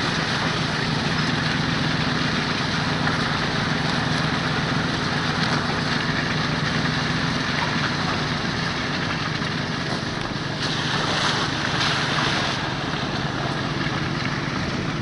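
A vehicle engine running steadily at a constant low hum, with wind and outdoor noise over it.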